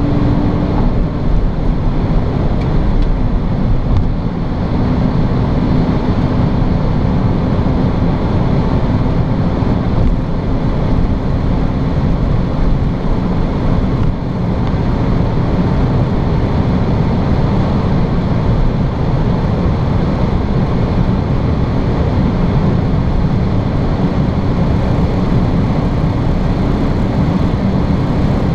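BMW E46 330Ci's 3.0-litre straight-six running steadily at motorway speed, heard from inside the cabin: a constant engine drone under a loud, even rush of wind and tyre noise.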